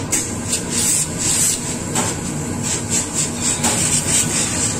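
Steam iron hissing in short, repeated spurts of steam, roughly two a second, as it presses wool fabric, over a steady low mechanical hum.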